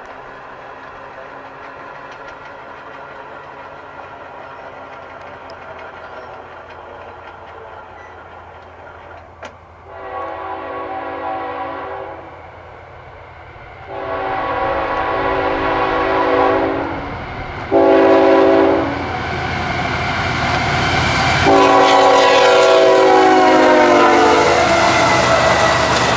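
Diesel locomotive approaching with its engine running and growing louder, sounding its multi-tone air horn in the long, long, short, long pattern of a grade-crossing signal; the last blast is held until the end.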